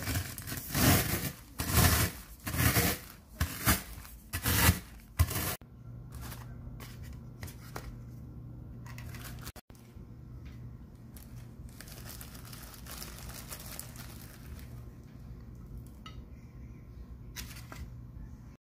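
Cheetos crunching and a plastic zip-top bag crinkling as a bottle is rolled over them to crush them, in a quick series of sharp crackling strokes for about five seconds. After that, a much quieter steady low hum with a few faint clicks.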